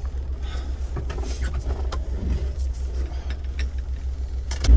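Maruti Gypsy 4x4's engine running, heard inside the cabin as a steady low drone with scattered light clicks. Just before the end it suddenly gets much louder as it takes more throttle.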